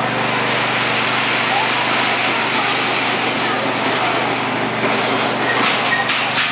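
Small lawn and garden tractor engine idling steadily, with a few short knocks near the end.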